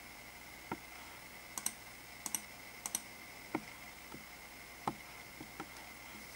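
Three quick double clicks of a small button, each a press and release, about two-thirds of a second apart, among a few softer knocks of handling. A faint steady high-pitched whine runs underneath.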